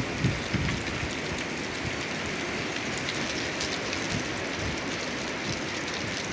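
Strong wind blowing steadily in a lull between gusts: an even hiss without the low buffeting on the microphone.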